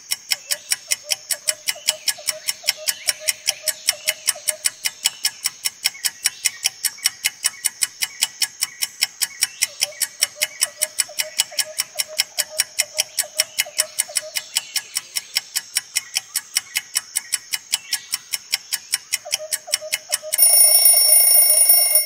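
Quiz countdown-timer sound effect: a clock ticking evenly at about four ticks a second. About twenty seconds in, as the timer reaches zero, a loud ringing alarm takes over for the last second and a half.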